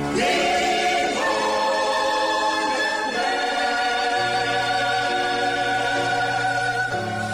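Gospel choir singing slow, held chords, the notes changing every second or two.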